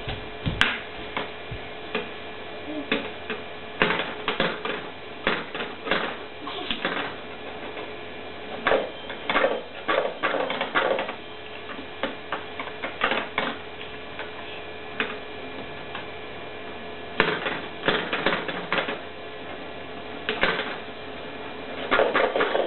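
Plastic balls clattering as they are dropped into and run around a Kumon Kuru Kuru Chime ball-drop toy: irregular clusters of clicks and knocks, with a quieter stretch about halfway through.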